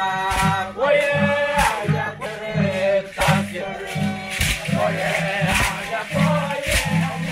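A group of men singing a traditional dance chant together, over a steady beat that falls a little under twice a second.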